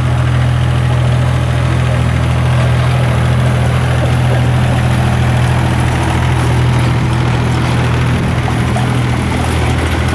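Diesel engine idling steadily, a low, even drone.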